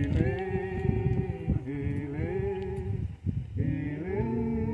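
A voice singing unaccompanied: three drawn-out phrases of long held notes with a wavering pitch.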